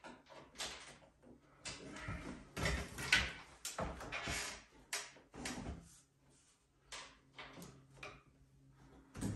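Irregular knocks, scrapes and rattles of a pressboard kitchen cabinet being handled, densest in the first half, with a sharp knock near the end.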